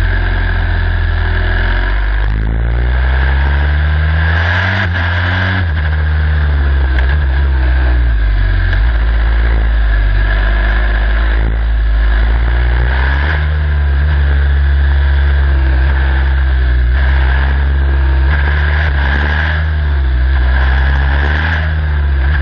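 Onboard sound of a turbocharged Formula Student race car engine, revving up and down repeatedly in low gears through a slow, tight section, then rising in pitch near the end as the car accelerates harder, over a steady rush of noise.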